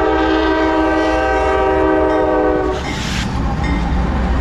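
Norfolk Southern diesel locomotive's multi-chime air horn sounding one long chord that cuts off about two and a half seconds in, followed by the low rumble of the passing locomotives' engines.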